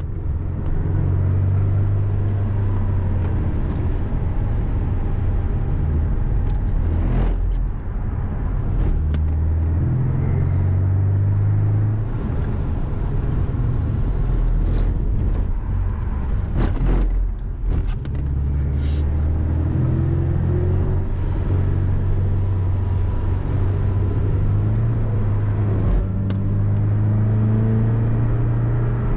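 Porsche 718 Cayman's engine heard from inside the cabin under way: a steady low drone whose pitch shifts as the car drives, dipping briefly a few times and rising near the end.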